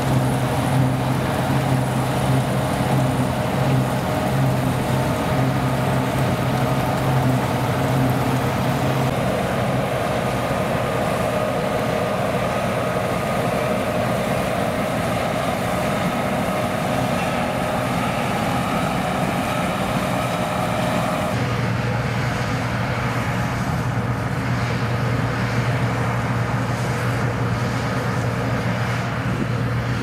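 Deutz-Fahr 5690 HTS combine harvester running while it cuts and threshes barley: a steady engine drone with a steady higher hum over it. About two-thirds of the way through, the tone of the drone shifts.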